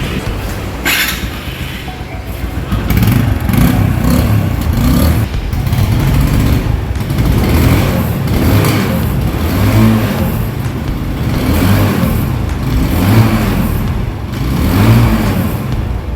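TVS motorcycle engine running and being revved in repeated swells, the bike freshly serviced and readied for a test ride.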